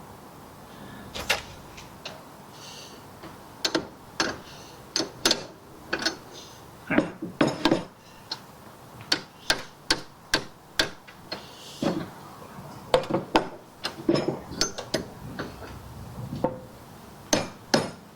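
Hammer tapping a metal part back into place against a steel dolly: irregular sharp blows, singly and in short clusters, coming quicker in a run near the end.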